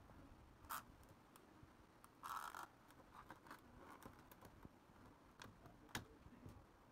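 Faint handling noises on a foam-board model fuselage: a light click, a brief scrape about two seconds in, and another click near the end.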